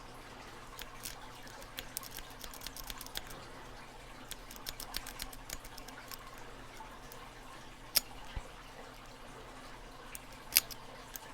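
Snake rake raking the pins of a Master Lock M530 padlock held under tension in the keyway: a run of quick, faint metallic clicks, with two sharper clicks in the last third.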